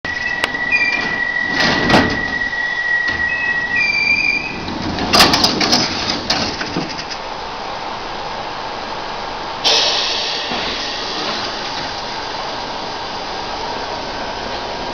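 London Underground A Stock train at the platform: electronic warning beeps over a held high tone, then the sliding doors bang shut in a ragged series of knocks about five to six seconds in. Near ten seconds a sudden hiss of air sets in and fades, and the train pulls away with a steady running noise.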